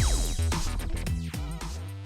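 Electronic music with a heavy bass line, fading out.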